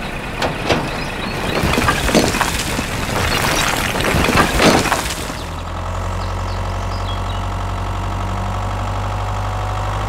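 A load of miniature bricks sliding off a tipping trolley and clattering onto a pile, many sharp clicks over about five seconds. Then a steady low tractor engine idle takes over.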